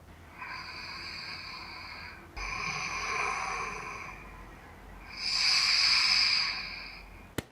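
A sleeping man breathing loudly while he wears a head-worn anti-snoring strap: three long, rasping breaths, the last the loudest, with no real snore in them. The strap keeps the snoring away.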